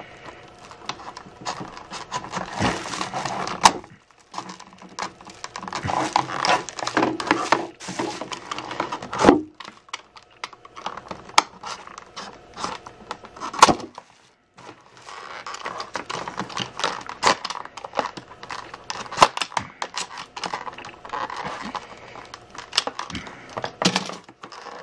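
Snap-off utility knife blade cutting through a hard plastic clamshell package: repeated scraping, crackling strokes with sharp clicks and pops of the stiff plastic, each stroke lasting a second or two with short pauses between.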